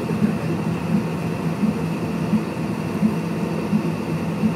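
Cabin noise inside a Cessna Citation X taxiing with its Rolls-Royce AE3007 turbofans at idle: a steady hum with a low throb that pulses about every 0.7 seconds.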